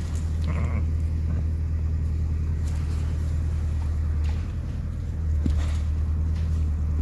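Steady low rumble throughout, with nothing else prominent.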